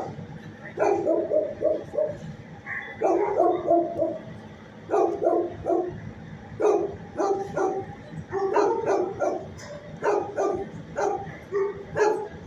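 Kennel dogs barking in quick runs of three to five barks, a new run every second or two.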